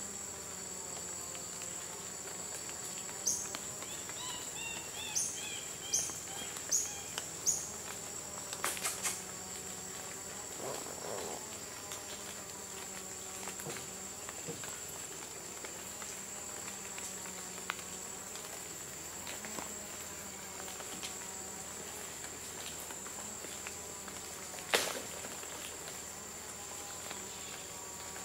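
Tropical forest insects droning steadily at a high pitch. A few seconds in, a series of five sharp chirps sounds over the drone, and a sharp click near the end is the loudest sound.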